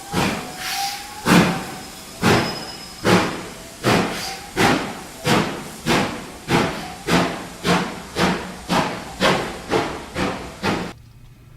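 Steam locomotive exhaust chuffing, about fifteen beats coming a little faster as it gets under way, then cutting off suddenly.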